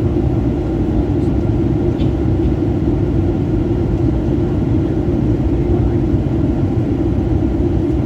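Passenger airliner cabin noise: a steady, even low rumble of engines and airflow.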